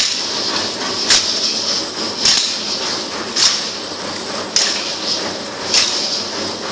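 Matachines dance percussion: a steady hiss of shaken rattles with a sharp accented strike at an even beat, about one every second and a bit.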